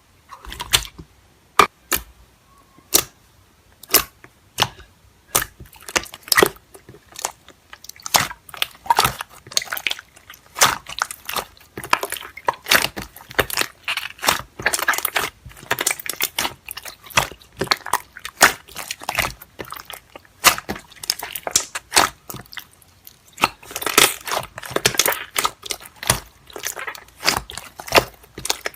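Slime being squeezed and pressed by hand, giving sharp clicks and crackles: a few single snaps at first, then dense, irregular crackling.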